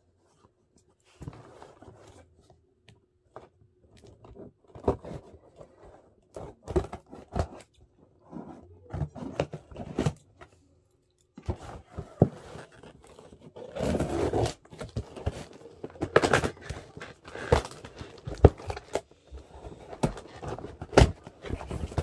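Cardboard shipping box being handled and opened by hand: irregular scraping, tearing and crunching of cardboard and packing tape with sharp knocks, busier and louder in the second half.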